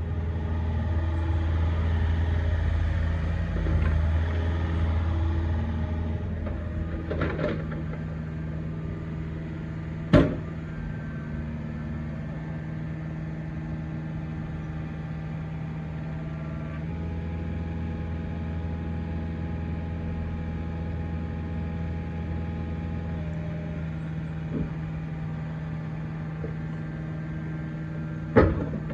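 Takeuchi TB250 compact excavator's diesel engine running steadily, a little louder for the first several seconds. A sharp knock comes about ten seconds in, and another just before the end.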